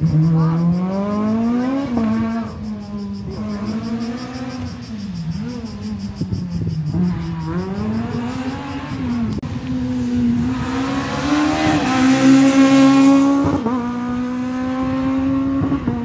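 Race car engine revving up and down, its pitch climbing and dropping every second or two with throttle and lifts. It grows loudest, with a rushing hiss, from about ten to thirteen seconds in as the car passes close, then settles to a steadier, higher note.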